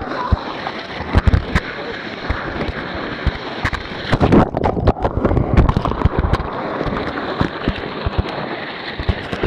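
Rushing whitewater of a river rapid under the raft, with splashing and irregular sharp knocks and bumps against the handheld camera.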